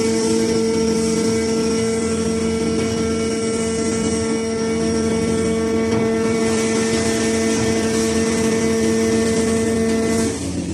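Hydraulic power unit of a scrap metal baler running with a steady whine over machine noise. The whine stops just before the end.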